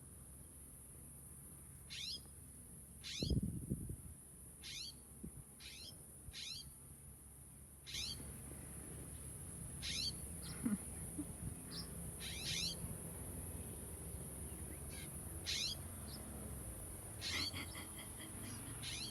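Bird alarm calls: short, sharp notes that slide steeply downward, repeated irregularly about once a second, raised at a bobcat lying nearby. A single low thump sounds about three seconds in.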